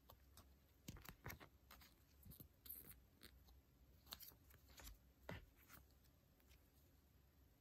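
Faint crinkling and clicking of a polymer banknote and its clear plastic sleeve being handled and turned over, a scatter of small crackles between about one and six seconds in.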